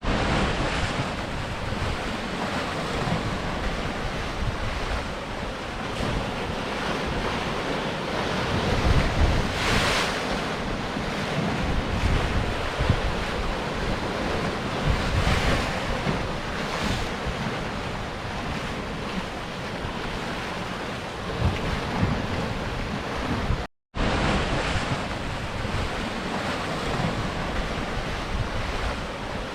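Sea surf breaking and washing against rocks: a steady rush with louder surges every few seconds. About three quarters of the way through, the sound drops out for a split second.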